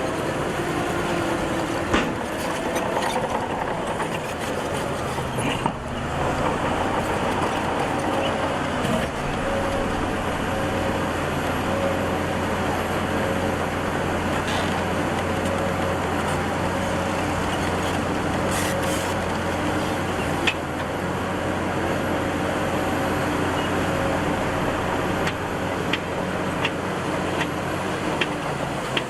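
Heavy diesel earthmoving machinery running steadily, with a few sharp metallic knocks.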